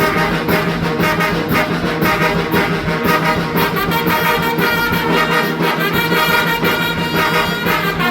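Mexican brass band (banda) playing a huapango: trumpets and trombones carrying the melody over a held low note, with a steady beat of about two strokes a second.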